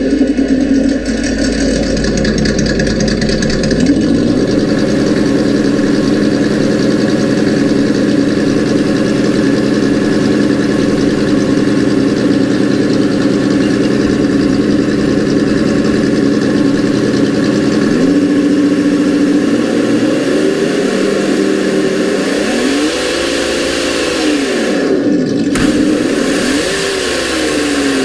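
Simulated engine sound from a Sense Innovations ESS-One sound module's speaker: an engine running at a steady pitch that steps up to a higher speed about four seconds in and again around eighteen seconds in, then revs up and back down twice near the end.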